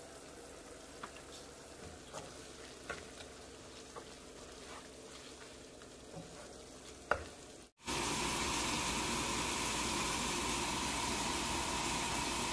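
Water spinach stir-frying in a nonstick wok: a faint sizzle with scattered sharp ticks. About eight seconds in it cuts abruptly to a much louder, steady sizzling hiss.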